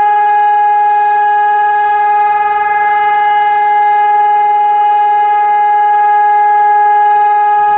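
ECN 1200 electronic high-performance civil-defence sirens sounding one loud, steady tone that holds its pitch without rising or falling. A steady tone is the all-clear (Entwarnung) signal of German public warning sirens.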